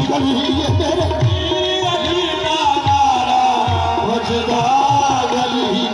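Live music over loudspeakers: tabla with low bass-drum strokes sliding down in pitch, under a sung melody that bends up and down.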